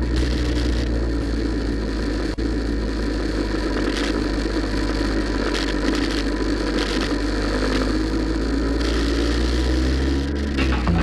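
Vespa scooter engines running steadily while riding in a column of scooters, with rushing wind and road noise.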